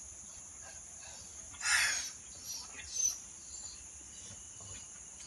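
Steady high-pitched insect chorus, with a short noisy scuffle about two seconds in and a few fainter knocks after it.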